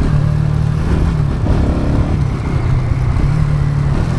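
Bajaj Pulsar NS200's single-cylinder engine running steadily while the bike is ridden.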